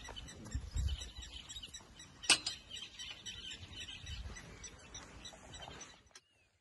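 Birds chirping and twittering in the background, with a few low thuds and one sharp click a little over two seconds in; the sound cuts away near the end.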